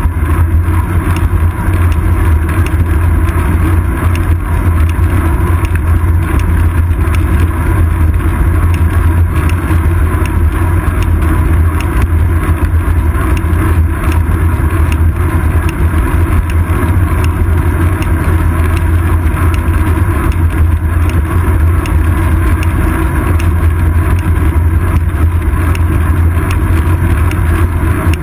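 Steady, heavy rumble of wind and road vibration picked up by a GoPro Hero 2 mounted on a bicycle's seat post as the bike rolls along an asphalt road.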